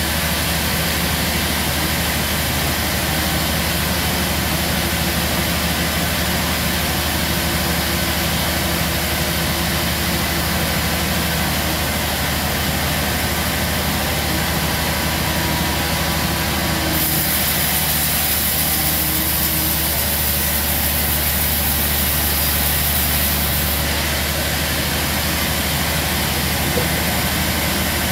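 Sawmill log band saw running steadily, with a constant machine hum and hiss. The hiss brightens for several seconds past the middle.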